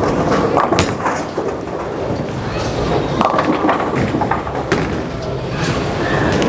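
A Storm Pitch Black solid urethane bowling ball lands on the lane with a sharp knock about a second in, then rolls toward the pins with a steady rumble, amid the clatter of other lanes.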